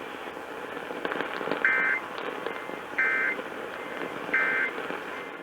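Emergency Alert System end-of-message signal from a weather radio: three short bursts of two-tone data chirps, about 1.3 s apart, marking the end of the flash flood warning broadcast. The radio's static hiss runs underneath.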